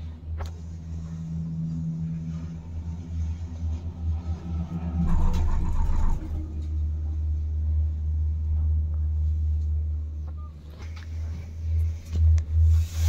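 Steady low rumble inside a moving Doppelmayr gondola cabin as it runs along the cable, swelling louder for about a second around five seconds in.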